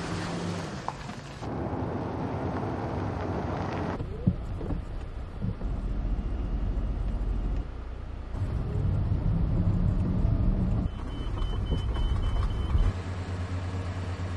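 Vehicle engine running, heard in short shots cut together, so the sound changes abruptly every couple of seconds. A thin high tone sounds briefly near the end.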